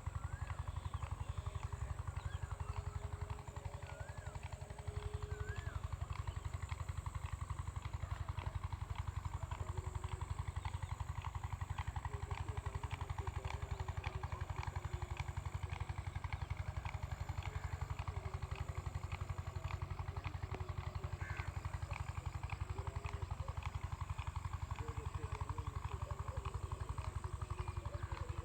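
Water pump running steadily, its motor giving a low, rapid, even pulsing with a regular light ticking over it.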